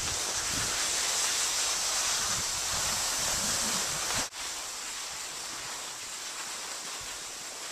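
Steady scraping hiss of sliding over granular spring snow, with wind buffeting the microphone in the first half. About four seconds in the sound breaks off abruptly, and the hiss carries on more quietly.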